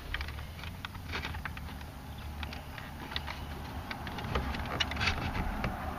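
Light plastic clicks and scrapes, irregular and busier near the end, from fingers working the clips and electrical connector on the back of a Mercedes R129 tail light assembly, over a low steady hum.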